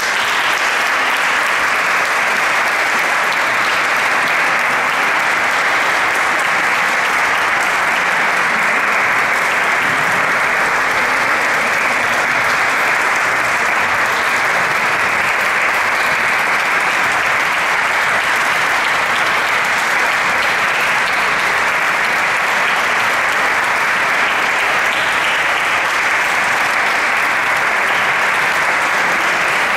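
Audience applauding steadily in a resonant church, welcoming a choir onto the stage.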